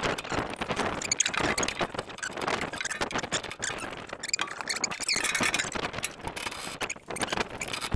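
Socket ratchet on a long extension being worked quickly back and forth, clicking rapidly with some squeaks, as it undoes the excavator's swing box bolts.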